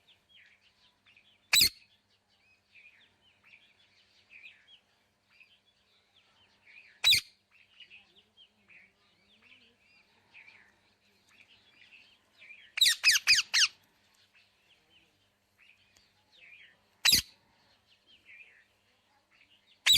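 A parrot giving loud, sharp screeches: single calls near the start, about seven seconds in and about seventeen seconds in, and a quick run of about five calls around thirteen seconds. Faint, continuous bird chirping goes on between the calls.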